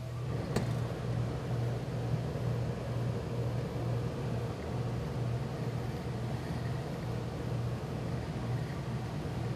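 Low, steady electric motor hum from the pressing equipment, coming on at the start with a brief click just after.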